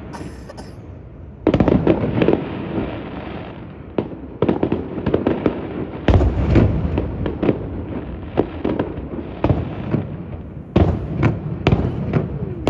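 Aerial fireworks going off: a rapid string of bangs and crackling, with heavier bursts starting about a second and a half in and again about six seconds in.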